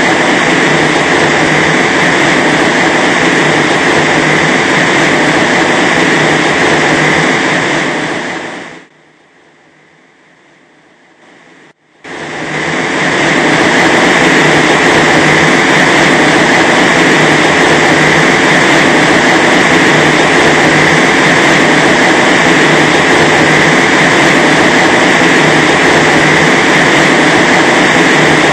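High-speed test wind from a wind-load rig, a loud steady rush of air with a strong hiss-like band, blasting the fence panel and the microphone. About 8 seconds in it fades away, and about three seconds later it comes back and holds steady.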